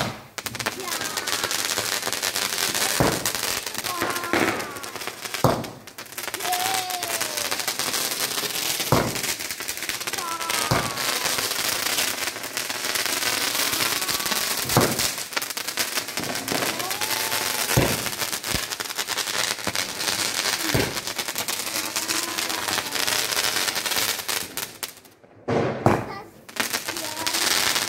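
Ground fountain fireworks (anar) hissing steadily as they spray sparks, with a sharp bang every few seconds. The hiss breaks off briefly near the end, then a fresh fountain starts up.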